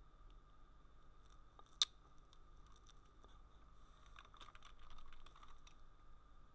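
Computer keyboard typing: one sharp click a little under two seconds in, then a quick run of keystrokes from about four seconds in. A faint steady electrical whine runs underneath.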